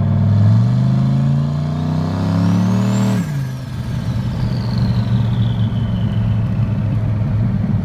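Turbocharged truck engine accelerating hard, its turbo whine rising with the revs, then the throttle is lifted about three seconds in and the revs drop. The turbo whine winds down after the lift, and the engine settles into a steady cruise.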